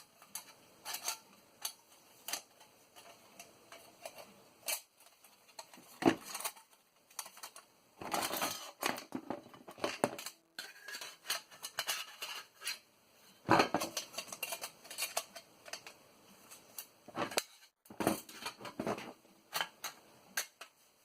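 Parts of a disassembled floppy disk drive being handled and fitted back into its frame: irregular clicks, taps and clatter of small hard pieces, busier in short spells about eight, fourteen and eighteen seconds in.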